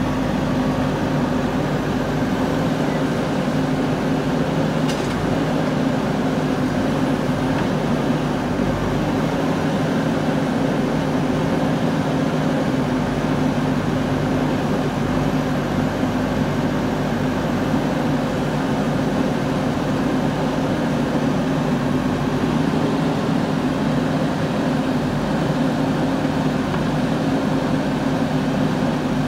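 Diesel engine of a JCB backhoe loader running at a steady, even speed while the backhoe loads soil into a tractor trolley.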